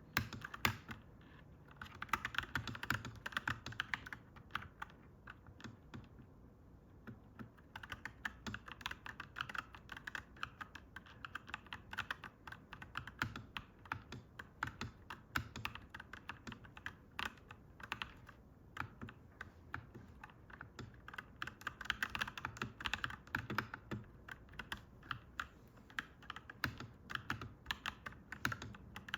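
Continuous fast typing on a clacky mechanical keyboard: a dense run of irregular key clicks and clacks, with a couple of brief pauses.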